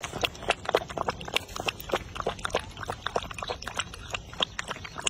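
Dog lapping water with its tongue: quick, irregular wet laps and splashes, several a second.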